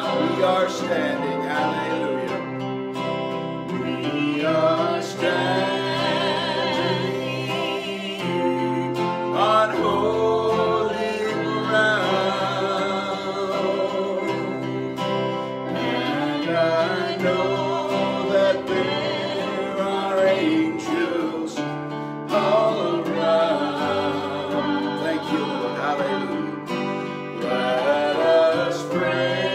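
Gospel song: a man singing with a strong vibrato to his own strummed acoustic guitar, with a second instrument played alongside.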